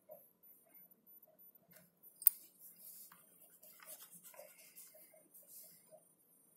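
Pencil strokes scratching on paper: a sharp click about two seconds in, then a run of short scratchy strokes that stop near the end. A faint, regular ticking runs underneath.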